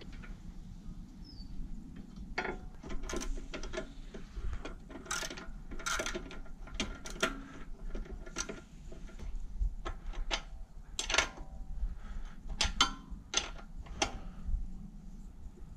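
Irregular metallic clicks and clinks of a hand tool and steel fittings while a pannier rail is bolted onto a motorcycle frame. The clicks begin about two seconds in and come in uneven clusters.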